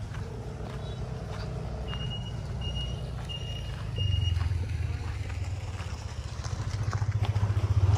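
A vehicle engine running with a low, pulsing rumble that grows louder about halfway through and again near the end. Four short, high electronic beeps come at even spacing, about two-thirds of a second apart, in the first half.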